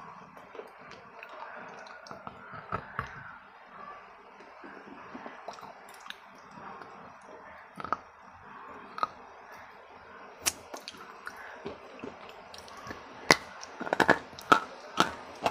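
Crisp cracking crunches of hard baked clay being bitten and chewed close to a lapel microphone. There are a few single cracks at first, then a quick run of the loudest crunches near the end.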